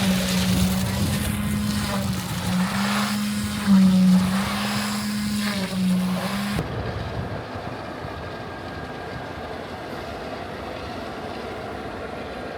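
Engine of heavy concrete-pour equipment running with a steady drone, rising a little in pitch and level a few times. About six and a half seconds in it cuts off abruptly, leaving a quieter steady outdoor noise.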